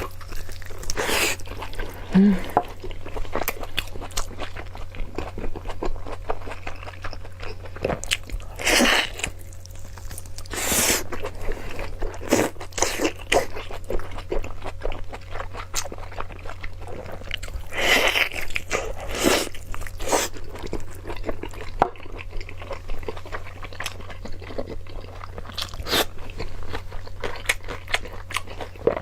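Close-miked eating: a person biting and chewing food with irregular crunches, a few bites louder than the rest, over a steady low hum.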